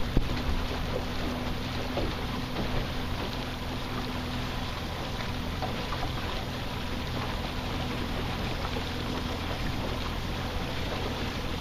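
Steady wind and water noise on open water, with a low, even engine hum underneath from a motorboat running slowly.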